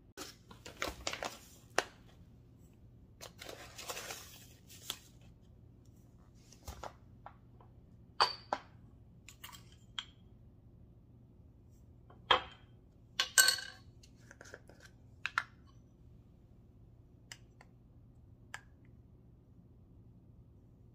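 Spices being measured into a ceramic bowl: scattered clicks and clinks of spice-jar lids and measuring spoons against the bowl, with short scraping, rustling scoops and pours of dry spice between quiet gaps.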